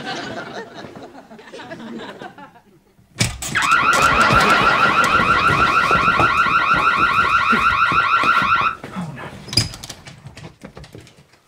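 Electronic alarm going off with a rapid warbling tone. It starts about three seconds in, sounds for about five seconds, then cuts off suddenly.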